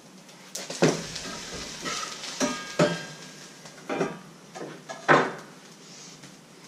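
Metal pan lid and frying pan clattering, with several sharp clanks and the loudest about five seconds in, over a faint sizzle of pancake batter frying.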